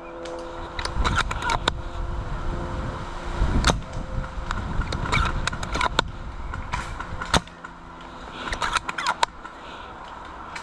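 Scattered sharp snaps and clicks, a few of them loud and single, over a steady rustling haze and low rumble like wind on the microphone.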